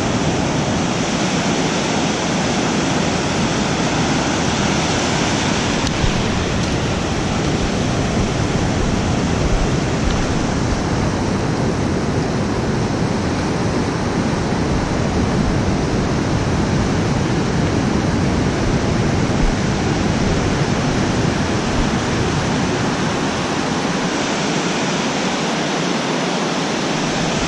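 Ocean surf washing up the sand at the waterline: a steady rush of broken waves and foam.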